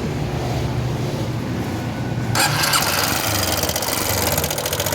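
Yamaha Fazer 250's single-cylinder engine running with a steady low note, joined about halfway through by a much louder, harsh fast mechanical clatter. The mechanic suspects the camshaft; the engine proves to have a worn cam chain, worn camshaft lobes and loose rocker arms from running low on oil.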